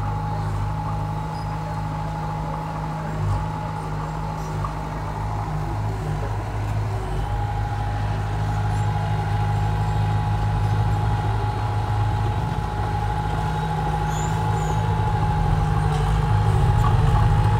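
Heavy-equipment diesel engine running steadily, with a thin steady whine above it, growing gradually louder from about halfway through.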